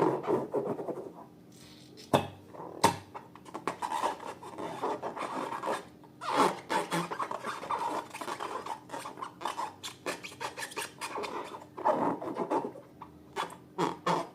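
Wet slime being worked and scraped in a container, with irregular squishing, rubbing and scraping. Two sharp clicks come about two and three seconds in.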